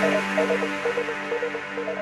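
Electronic background music with a steady pulsing melody over sustained tones, slowly fading out.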